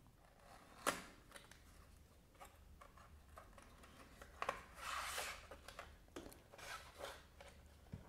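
Faint scraping and rustling as a cardboard box's tray is slid out and a clear plastic insert is handled to take out a pen, with one sharp click about a second in.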